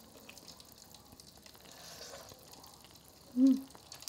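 Fish cake soup simmering in a camping pot, a faint steady bubbling and hiss. About three and a half seconds in, a short hum from a person's voice.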